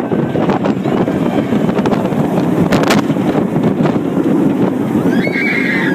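Loud wind buffeting the phone's microphone as a steel roller coaster train speeds down the track, with the rumble of the train. Near the end a rider's scream rises and falls.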